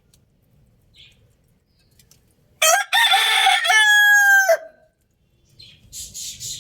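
A rooster crows once, starting a few seconds in and lasting about two seconds, ending on a long held note. Faint short chirps come before it, and a burst of high chirping from small birds starts near the end.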